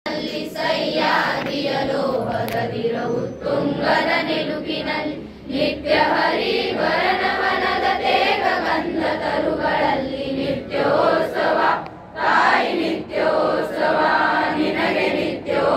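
A large group of schoolchildren singing a song together in chorus, in phrases with short breaks about five and a half and twelve seconds in.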